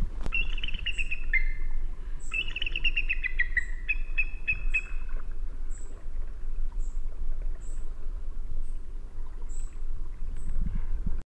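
Birds singing: two runs of clear whistled notes that step down in pitch in the first few seconds, with high thin chirps repeating about once or twice a second throughout, over a steady low rumble. The sound cuts off suddenly just before the end.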